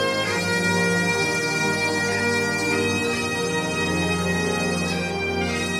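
Recorded music: bagpipes playing a melody over their steady drones.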